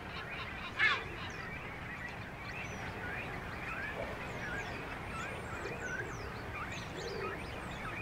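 Seabird colony: many birds calling over one another in short chirps, with one louder call about a second in, over a steady background noise.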